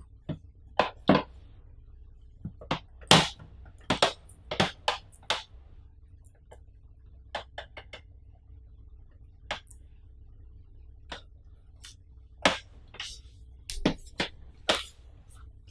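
Irregular sharp clicks and taps as the TV's power cord is uncoiled and handled, its plug and cable knocking against the plastic back panel of the LED TV, about twenty in all with the loudest about three seconds in.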